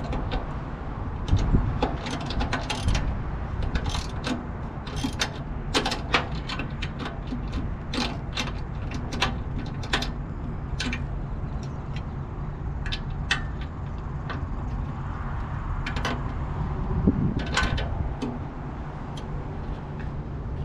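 Hand ratchet and socket clicking in irregular runs as the quarter-fender mounting bolts are tightened, over a steady low rumble.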